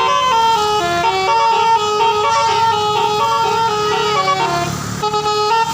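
Basuri telolet bus horn playing a tune, its chord of tones stepping from note to note every half second or so. About four and a half seconds in, the notes slide down and fade, then the tune picks up again just before the end.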